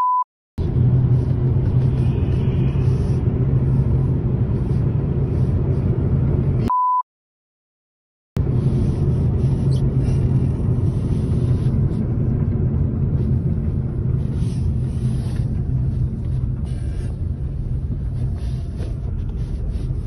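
Steady low rumble of a car driving, heard while filming from it. It is cut twice by a short beep followed by a second or so of silence, once right at the start and once about seven seconds in.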